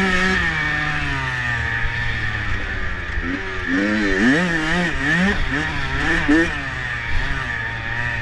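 Small motorbike engine running and revving up and down repeatedly, its pitch rising and falling in quick waves, with the most back-and-forth revving in the second half.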